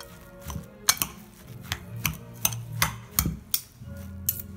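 Metal spoon and fork clinking irregularly against a ceramic bowl while stirring a thick chopped okra and shrimp mixture, over a low steady hum.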